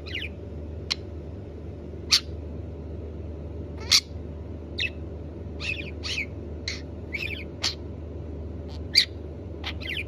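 Budgerigar chirping: about a dozen short, high chirps at irregular intervals, some of them wavering into a brief chatter, with two louder ones near the middle and near the end.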